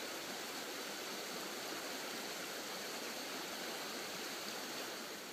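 Steady, even outdoor background hiss with no distinct strokes, knocks or voices.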